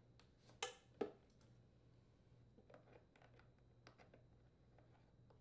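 Mostly near silence with faint handling noises of a plastic fuel tank, rubber fuel line and spring clamp being worked with pliers: two short clicks about half a second and a second in, then scattered light ticks.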